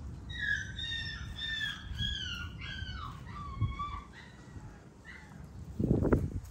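Animal calls: a quick run of short high notes, each gliding downward, for about three seconds, then a few lower, softer notes. A loud rustling thump comes near the end.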